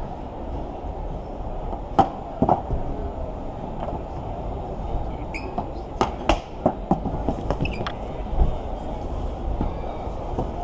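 Steady low din of a crowded exhibition hall, with a handful of sharp knocks and clacks about two seconds in and again in a cluster around six to eight seconds in.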